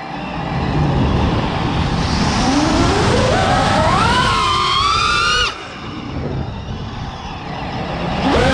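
FPV racing quadcopter's motors whining, with wind rushing over the onboard camera's microphone. The whine climbs steeply in pitch for about two seconds as the throttle is raised, holds, then cuts off suddenly about five and a half seconds in as the throttle is chopped for the dive. After a few seconds of wind rush it jumps back up just before the end.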